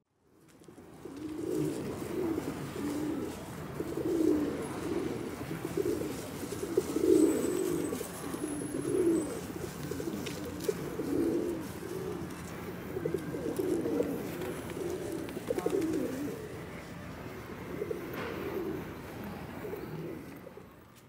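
Feral pigeons cooing, low repeated coos about once a second, fading in at the start and out near the end.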